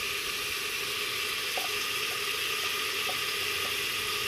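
Rib meat, onion and garlic sizzling in oil in a pressure cooker on the stove: a steady frying hiss as the meat browns. A few faint light ticks come about every half second from a second and a half in.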